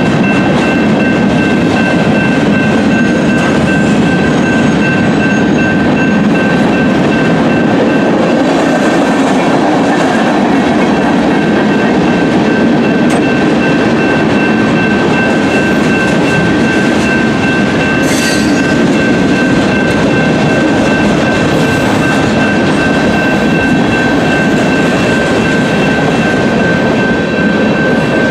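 Freight cars of a BNSF manifest train rolling steadily through a grade crossing, their wheels clattering over the rail joints. The crossing's electronic bell rings without a break over the rumble.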